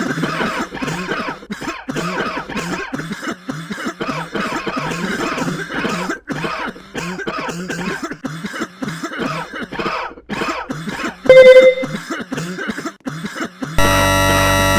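Rapid repeated coughing mixed with music. About 11 seconds in a short, very loud beep-like tone cuts in, and near the end a sudden blast of loud, harsh noisy music takes over.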